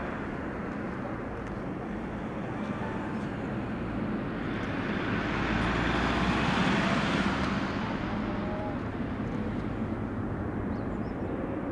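Twin jet engines of a Boeing 777-200 at takeoff power as the airliner climbs out. A broad rushing rumble swells to its loudest about six to seven seconds in, then slowly fades as the plane draws away.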